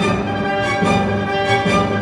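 Orchestral music led by bowed strings.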